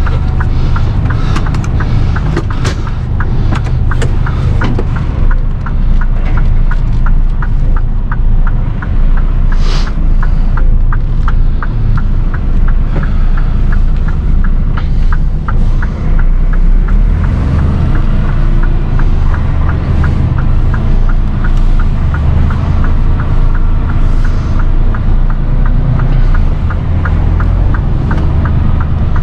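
Mercedes Actros tractor unit's 510 bhp straight-six diesel running as the truck drives off with no trailer, heard from inside the cab as a heavy low rumble. A regular ticking sounds over it.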